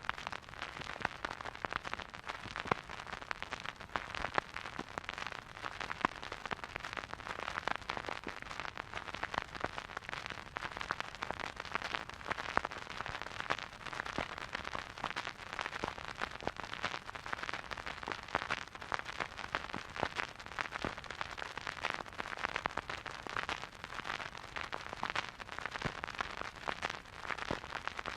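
Surface noise of a vinyl record played in a silent groove: dense, irregular crackles and pops over a steady hiss, with no music. It is the sound of a dusty, worn record under the stylus.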